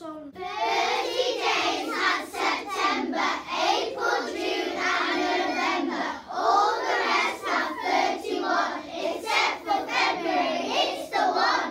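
A class of young schoolchildren singing a maths song together, many voices in unison.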